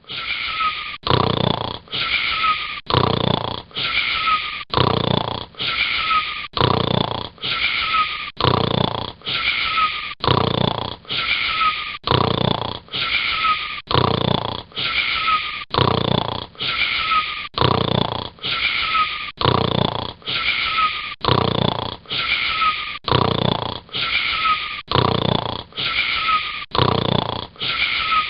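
Rhythmic snoring, about one snore a second, each breath carrying a short wheezy whistle.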